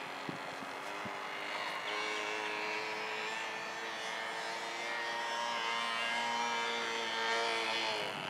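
Radio-controlled old-timer model airplane's engine droning steadily as it flies overhead, its pitch dipping slightly near the end.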